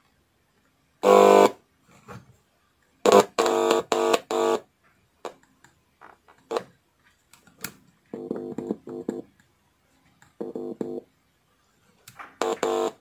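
A small oval speaker driven by the repaired car subwoofer amplifier buzzes in several short on-and-off bursts of a pitched buzz as tweezers touch the amplifier's board. The buzz through the speaker shows the amplifier is passing signal again.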